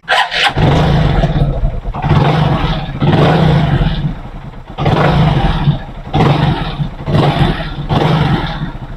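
Hero Super Splendor's single-cylinder four-stroke engine starting, then revved in about seven throttle blips. It runs smoothly, with no knocking from the clutch side now that the clutch housing has been machined and the broken clutch spring dealt with.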